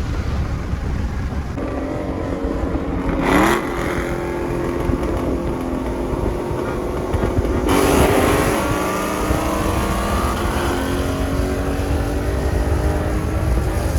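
Performance V8 car engines running, revved briefly about three seconds in and more loudly about eight seconds in.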